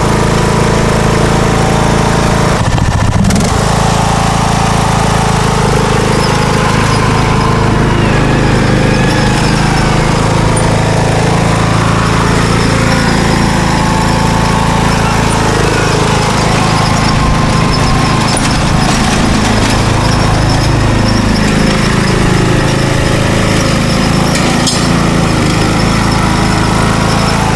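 John Deere D105 riding lawn tractor's engine running steadily as it drives across the lawn. Its pitch dips and rises again once about twenty seconds in.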